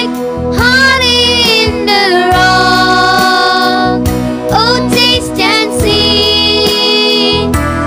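A boy and a girl singing a Christian worship song over electronic keyboard chords, with long held notes in the middle and again near the end.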